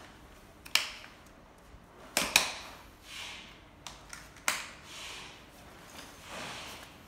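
Plastic clicks and snaps of a stroller bumper bar being pushed into its mounts on a YOYO stroller frame: one sharp click under a second in, two louder snaps in quick succession a little after two seconds, and another near four and a half seconds, with quieter handling noise between.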